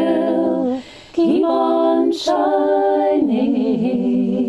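Woman singing a cappella, her voice layered in several harmony parts, holding long notes on the words "keep on", with a short break about a second in.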